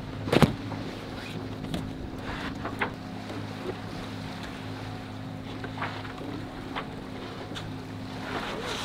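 On board a sailboat at sea: a steady low hum with wind and water noise, a sharp knock about half a second in and scattered clicks and knocks after it.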